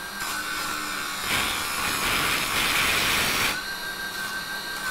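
Mini wood lathe running with a steady high whine, while a file used as a makeshift chisel scrapes the spinning soft timber. The scraping grows louder through the middle and then eases off.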